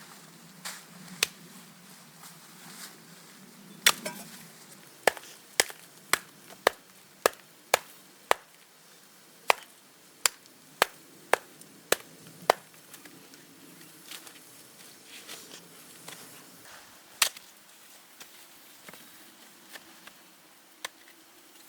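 Chopping on wood: a run of sharp strikes, somewhat under two a second, starting about four seconds in, then a few scattered strikes near the end.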